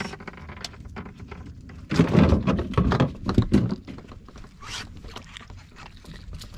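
Irregular knocks and thumps, with a louder run of thumps between about two and three and a half seconds in.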